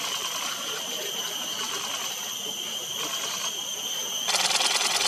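Insects chirring in a steady, high-pitched drone from the surrounding wetland vegetation. Near the end a louder burst of rapid ticking cuts in for about a second.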